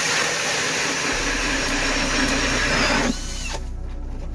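Power ice auger boring a hole through lake ice: a steady, loud grinding run that cuts off about three seconds in.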